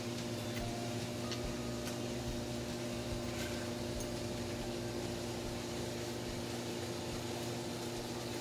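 A steady mechanical hum, several fixed tones at once, over an even hiss, with a few faint clicks.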